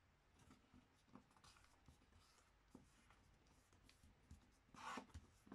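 Faint rustling and scraping of a sheet of paper as hands fold it and run fingers along the creases, with a louder paper swish about five seconds in.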